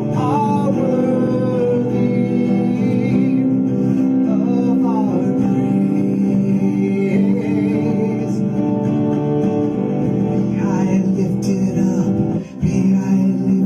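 Worship music: a man singing over strummed acoustic guitar, with held notes and wavering melodic lines, and a brief break in the sound near the end.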